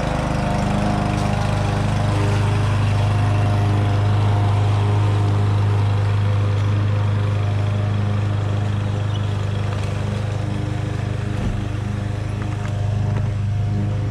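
Gasoline lawn mower engine running steadily at working speed with an even, low drone.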